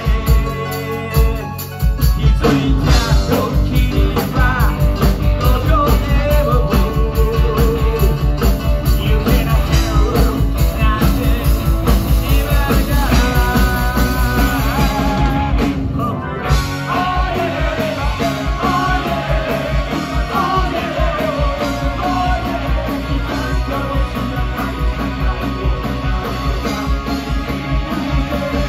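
Live rock band playing: electric guitars, bass and drums driving a steady beat, with a man singing lead.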